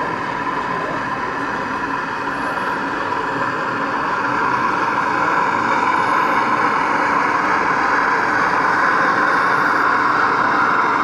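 O gauge model diesel railcar running along the layout, a steady whine of several even tones that grows gradually louder as it approaches.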